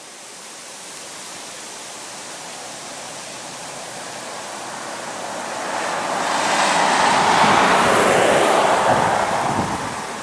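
Pilot car passing at highway speed: its tyre and road noise swells to a peak about seven seconds in, then fades. Gusts of wind buffet the microphone near the end.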